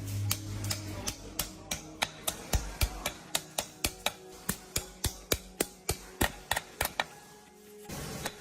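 Hammer tapping repeatedly, about three sharp strikes a second, with a short pause near the end.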